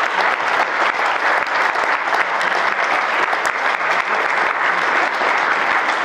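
Audience applauding steadily, a dense sustained clapping from a roomful of people.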